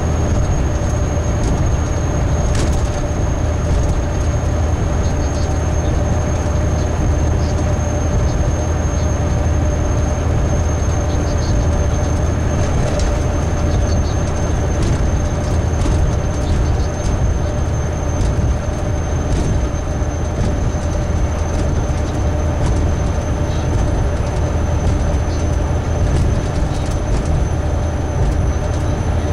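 Steady cab noise of a semi truck cruising at highway speed: a deep, even engine drone under road and tire noise.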